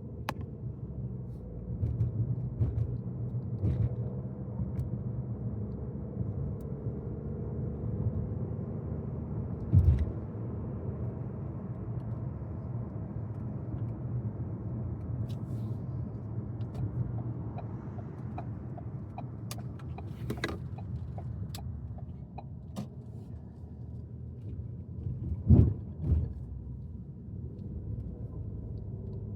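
Parking-lot background with a steady low rumble of car traffic and engines. Two louder thumps come about ten seconds in and again near the end, with a run of light clicks in between.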